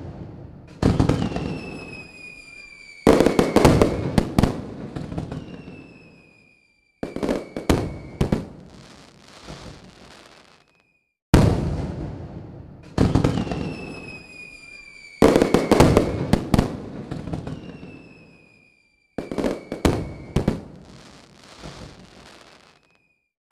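Aerial fireworks display: a string of loud bangs as shells burst, each trailing off in crackling, with high whistles that slide slightly downward in pitch. The sound cuts off abruptly a few times.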